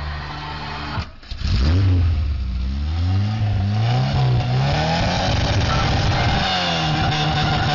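Car engine revving: it dips briefly, then climbs steadily in pitch for a few seconds before settling to a steady higher rev.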